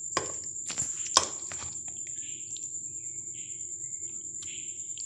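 Plastic spatula scraping and knocking against a glass baking dish while scooping out cheesy baked pasta, with several sharp clicks in the first second or so, the loudest a little over a second in, then softer scraping. A steady high-pitched whine runs underneath.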